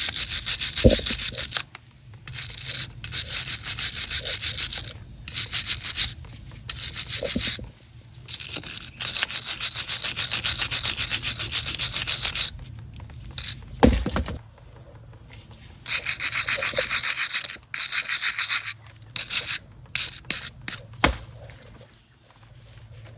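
A hand tool working the rusty front brake hardware of a Ford F350 in bursts of quick rasping strokes, several seconds at a time with short pauses, and a few sharp knocks of metal on metal.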